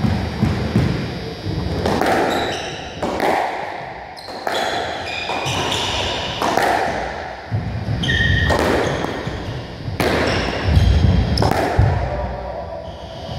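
Squash rally: the ball cracks off racquets and the court walls every second or so, echoing in the court, with players' shoes squeaking and thudding on the wooden floor between shots.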